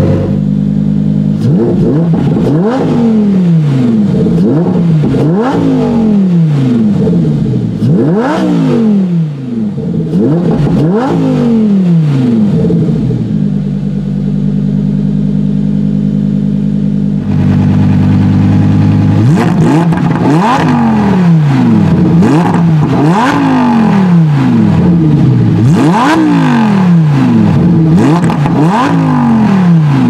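Lamborghini Huracán Performante's 5.2-litre V10 free-revved while parked. It gives a run of quick blips, each climbing and falling straight back, then idles steadily for several seconds in the middle before another run of blips.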